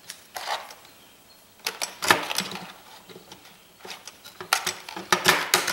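Clicks and light metallic clatter as a network switch's circuit board, with its metal port cages, is handled and lifted out of its sheet-steel chassis, knocking against it. One bunch of knocks comes about two seconds in and another near the end.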